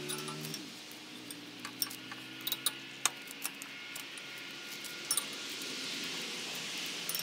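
Scattered sharp metal clinks and taps of a hand tool working on a garden-tractor rototiller attachment, several between two and three seconds in and a pair about five seconds in. An engine hum dies away in the first half second.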